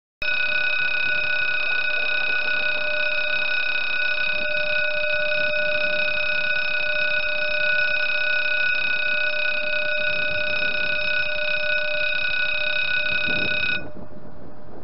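French level crossing warning bell: a continuous electronic ringing made of several steady tones, the signal that a train is coming and the barriers are lowering. It starts abruptly just after the start and cuts off just before the end, as the barrier reaches the closed position.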